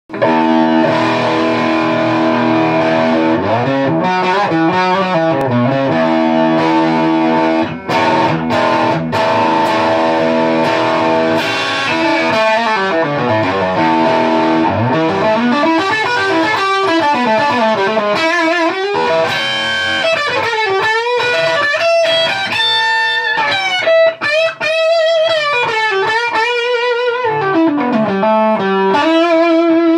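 Custom Telecaster Thinline-style electric guitar with humbucking pickups played through a high-gain, distorted tone: sustained lead notes with wide vibrato and many slides and bends gliding up and down in pitch.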